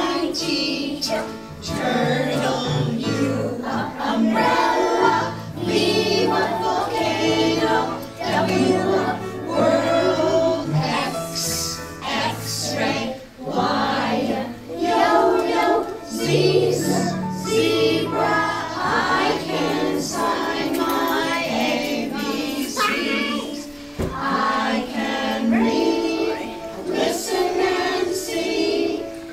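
A class of young children singing a song together in unison over an instrumental backing with a steady bass line.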